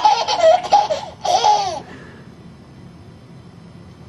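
A toddler laughing: a quick run of high giggles, then one longer laugh that slides in pitch, both in the first two seconds.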